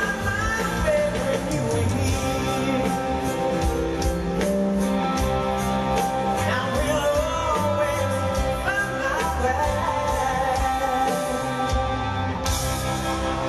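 A rock band playing live in a stadium, a male lead singer singing over drums, bass and electric guitar. A bright hiss comes in near the end.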